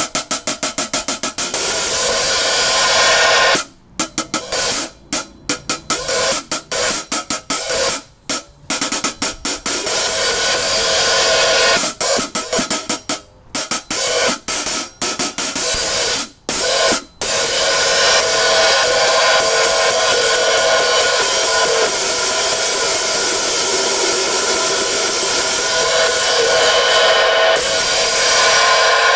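Pair of 14-inch SAMSON Percussion hand-hammered bronze hi-hat cymbals being played in a sound test, their crack near the logo freshly repaired. Quick runs of strikes are broken by short pauses, then a continuous wash of cymbal sound holds for roughly the last ten seconds.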